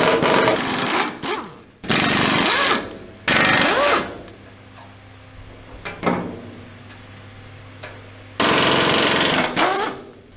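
Handheld pneumatic air tool hammering against bolts on the tank's steel hull deck, in about four bursts of half a second to a second each with quieter pauses between.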